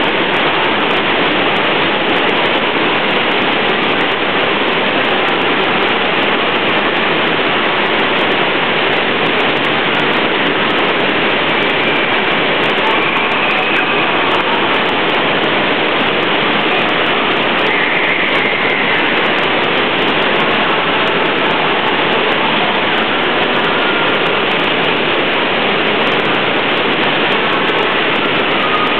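Steady, loud rush of the pumped sheet of water pouring over an artificial standing-wave surf ride.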